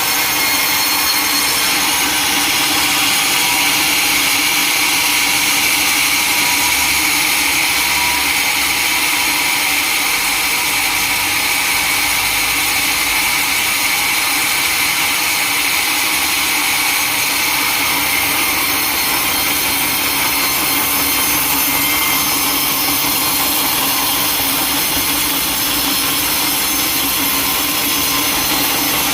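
Sawmill saw running through wood: a steady, high-pitched hiss and whine that holds without a break.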